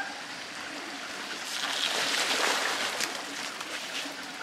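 Creek water rushing steadily, swelling louder for a couple of seconds in the middle.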